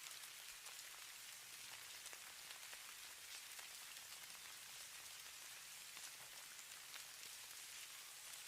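Falling snow landing on a surface: a faint, steady hiss with many scattered light ticks.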